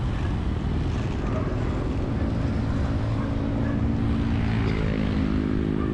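Wind rumbling over the microphone of a moving bicycle, with a motor vehicle's engine running close by, its hum growing stronger in the second half.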